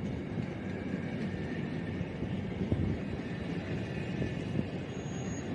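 Steady low rumble of vehicle noise with faint, steady high whining tones; a short thin high tone sounds near the end.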